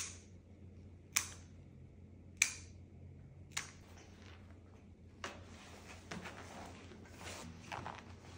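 Millers Forge nail clippers snipping through a Shih Tzu's overgrown toenails: four sharp clips about a second apart, then fainter scattered ticks and rustles.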